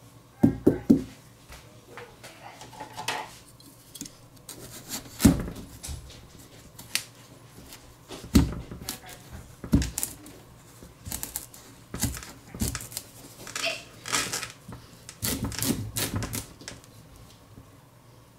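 Knife cutting through the hard rind of a large pumpkin on a cutting board: irregular knocks, cracks and scrapes. The loudest is a quick run of three knocks at the start, and a denser cluster comes near the end as the pumpkin splits open.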